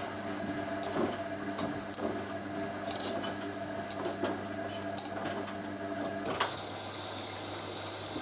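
Hoover A3060 washing machine filling: water running into the machine under a steady hum, with faint clicks about once a second. About six seconds in the hum stops and the running water carries on.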